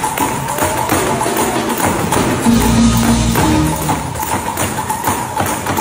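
Live gospel music played loud, with a steady tambourine beat and a low bass note about halfway through.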